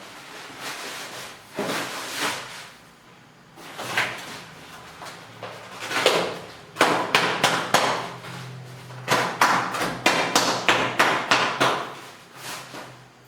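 Packaging being handled and opened by hand: irregular knocks, taps and clicks with a few longer scraping or tearing sounds, and a quick run of clicks and rustles in the second half.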